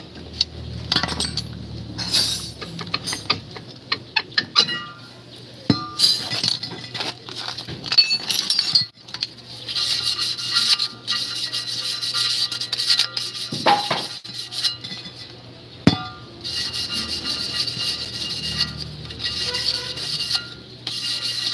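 Metal clinks and knocks as a Toyota HiAce's steel rear brake drum is worked off the hub and handled, then a long stretch of steady scraping at the drum, with faint ringing tones under it.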